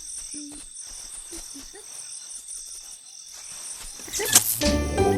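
Crickets chirping in an even pulsing pattern, about two chirps a second. About four seconds in, a loud whoosh leads into upbeat music with jingle bells.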